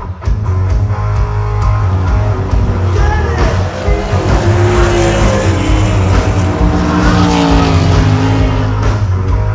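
A USAC Silver Crown race car running on the dirt mile, its engine pitch slowly falling as it goes by, mixed with background music with guitar.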